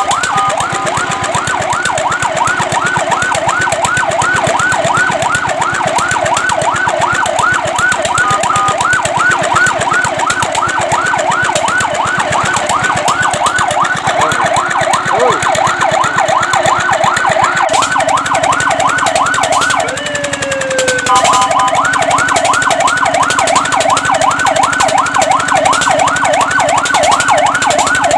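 Fire truck siren sounding a rapid yelp, sweeping up and down about five times a second. About twenty seconds in, the yelp breaks off for a single slower falling glide, then starts again.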